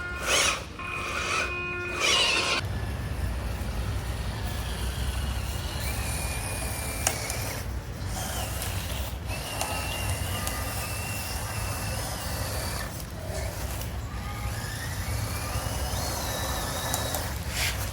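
Mini RC truck driving: a steady low rumble with a faint high whine that rises and falls in pitch, after a couple of seconds of steady stacked tones at the start.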